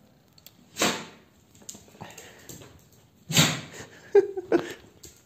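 A dog making short sounds: two brief noisy bursts a couple of seconds apart, then a short pitched yip about four seconds in.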